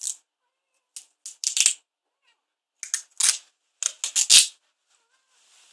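A tabby cat tussling with a strip of sticky tape: a run of about nine short, sharp, crackly sounds in quick clusters, the loudest near the end.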